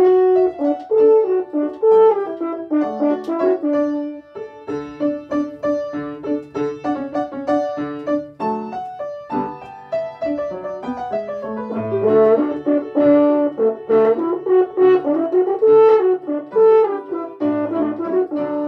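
French horn playing a tune of many short, separate notes, with brief breaks about four and nine seconds in.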